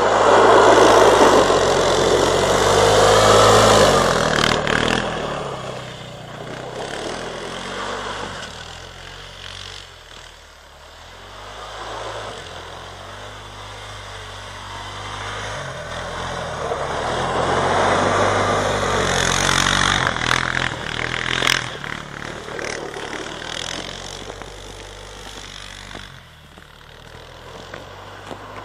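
Suzuki Eiger 400 ATV's single-cylinder engine revving as the quad drives past close by, loudest in the first few seconds. It fades as the machine moves away, swells again about two-thirds through, then dies down near the end.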